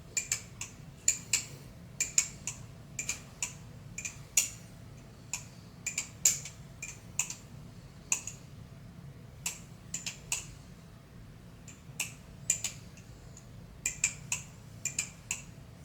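Squid Industries Kraken balisong being swung open and shut, its handles and blade clacking together in a string of sharp, irregular clicks about two a second. Its pivots have just been lubricated and the swinging is working the lube in.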